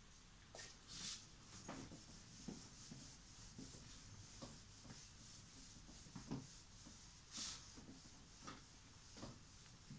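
Faint, intermittent rubbing of a cloth duster wiping a whiteboard, in short swishes with a few light taps.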